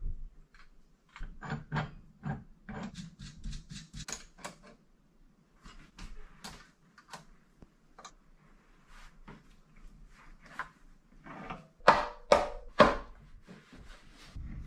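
Hand tools working a puller on a four-stroke dirt bike engine's crankcases to split them: scattered light clicks and knocks, a quick run of ticks about three seconds in, and three loud sharp knocks near the end.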